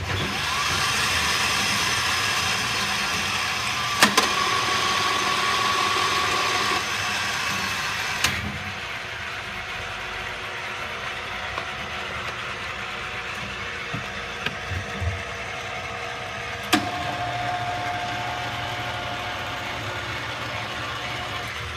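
Hardinge HLV-H toolroom lathe switched on with a click and running steadily, a mechanical whir with a faint whine. Three more sharp clicks come as levers are shifted, each followed by a change in the running pitch or level.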